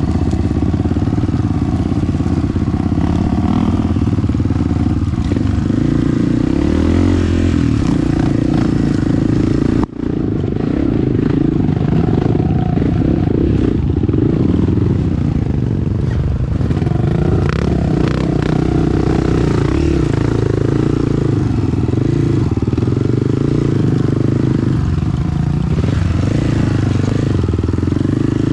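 Honda CRF 250F trail bike's single-cylinder four-stroke engine running under way on a dirt trail, its note rising and falling with the throttle. The sound cuts out for an instant about ten seconds in.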